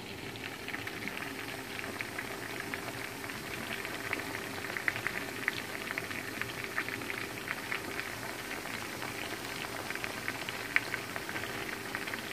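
Seasoned chicken wings frying in hot oil in a skillet: a steady sizzle full of small crackles and pops, with a faint steady hum underneath.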